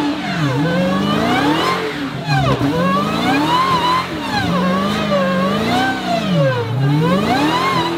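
Supercharged V8 of a Dodge Charger SRT revving hard up and down, about once a second, while it holds a smoking burnout with the rear tyres spinning. A whine rises and falls with the revs.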